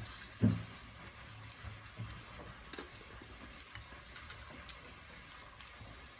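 Quiet eating of noodles with forks: scattered small clicks and ticks of chewing and utensils, with one soft thump about half a second in.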